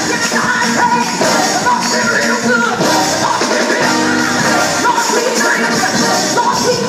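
Live gospel singing by a women's vocal group into microphones, backed by a band with keyboard and drums, amplified through PA speakers.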